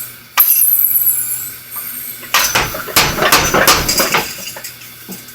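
A 100 lb Fairbanks mechanical power hammer striking. Its heavy ram comes down with a sharp metallic clang and high ringing about half a second in, then gives a quicker run of blows and clatter that dies away about four seconds in.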